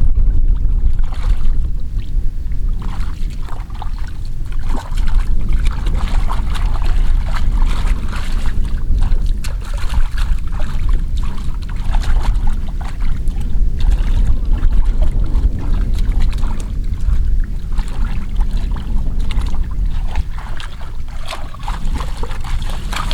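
Steady low rumble of wind on the microphone, with irregular sloshing and splashing of water over it.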